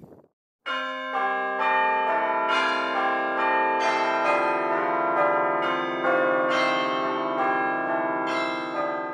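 Outro music of bell-like chimes: ringing notes struck one after another about every half second, starting a moment in and fading out near the end.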